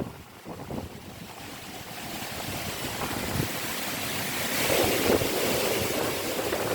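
Storm-force wind rushing and gusting, building steadily after a lull, with a stronger gust about five seconds in and wind buffeting the microphone.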